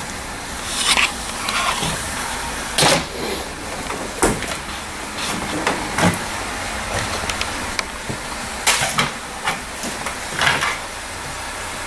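Irregular knocks and clatters of discarded electronics being shifted and rummaged through in a dumpster, over a steady background noise.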